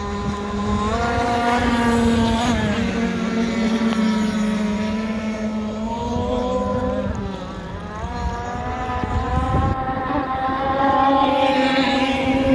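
Petrol RC boats' small two-stroke engines running flat out, their pitch rising and falling as the boats swing round the lake. Near the end one boat comes close and gets louder.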